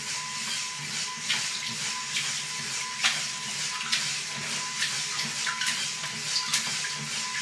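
Water sloshing and splashing in a glass tank as waves from a LEGO Technic wave-generator paddle break against a model seawall and spill over it. Irregular sharp clicks and a steady thin hum run under the water sound.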